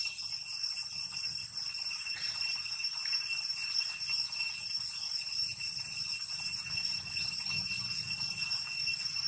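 Steady high-pitched drone of insects such as cicadas, holding one even pitch without a break.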